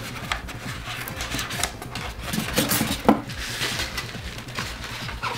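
Polystyrene foam packing blocks and cardboard being handled as they are pulled off a boxed rifle replica: rustling with scattered light clicks and knocks, and a sharper knock about three seconds in.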